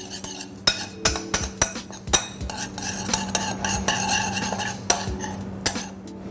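Metal fork stirring a small amount of liquid sauce in a ceramic bowl, clinking and scraping against the sides in quick, irregular strokes.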